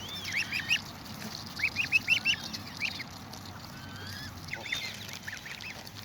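Water birds calling: short, high, arching calls in quick groups of three to five, with a few lower falling calls near the end.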